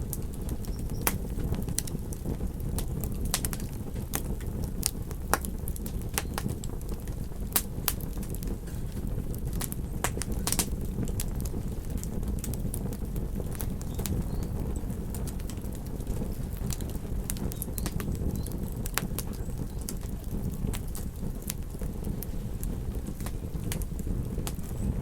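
Campfire crackling, with sharp pops at irregular intervals over a steady low rush.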